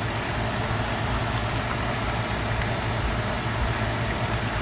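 Squid and onions sizzling steadily in hot oil in a frying pan, over a low steady hum.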